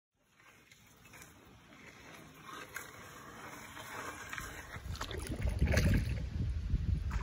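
Shallow river water flowing over gravel, heard from a kayak on the water. It fades in at the start and grows steadily louder, with a low rumble building in the second half.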